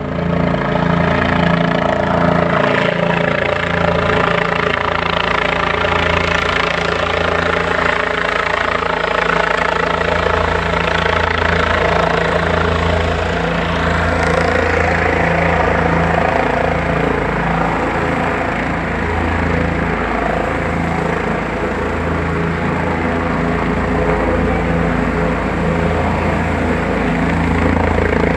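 Helicopter flying close: its engine and rotor make a loud, steady noise with several held tones over a low hum.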